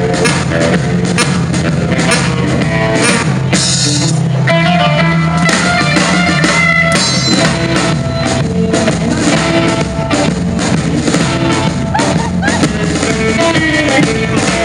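Small band playing live: electric hollow-body guitar, upright double bass and drums, with a trumpet, in an upbeat arrangement with a steady beat and a cymbal crash about four seconds in.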